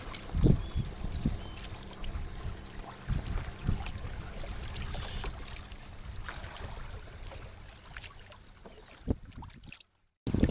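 Water splashing and rushing along the hull of a Hobie Tandem Island sailing kayak under way through light chop, over an uneven low rumble. The sound cuts out completely for about half a second near the end.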